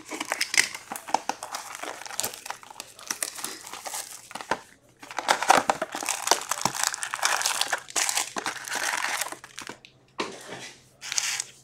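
Crinkling and crackling of the plastic wrap being cut and torn off a sealed box of hockey cards, then the cardboard lid opened and the foil card packs handled and set down. The sound is dense and full of small clicks, with brief pauses about halfway through and near the end.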